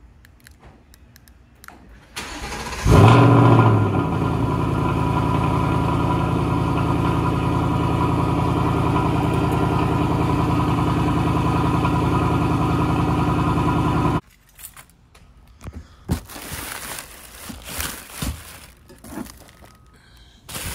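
Cold start of a 2024 Ford Mustang GT's 5.0-litre Coyote V8: the starter cranks briefly, the engine catches about three seconds in with a loud flare of revs, then settles into a steady idle. The engine sound cuts off suddenly near fourteen seconds in, followed by scattered rustling and knocks of packaging being handled.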